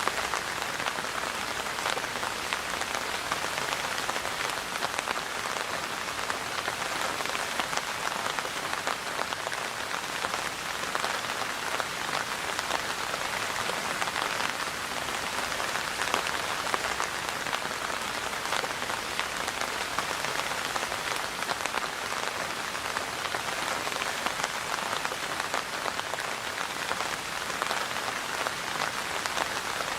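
Steady rain falling, a dense even patter of many small drop impacts.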